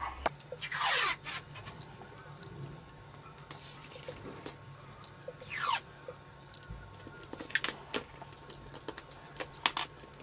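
Adhesive tape pulled off its roll in two short rasping rips, about a second in and just before six seconds, with light clicks and taps from handling the tape and the LCD panel in between.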